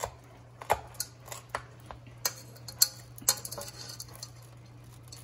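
A metal utensil clicking and scraping against the inside of a nonstick cooking pot of rice, with about ten sharp, irregular clinks and a few short scrapes, over a steady low hum.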